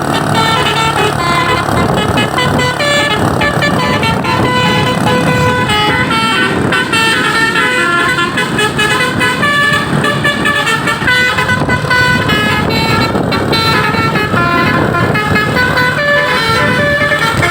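A truck's basuri telolet horn, a multi-note musical horn, playing a tune of short notes that change pitch every fraction of a second, with vehicle noise underneath.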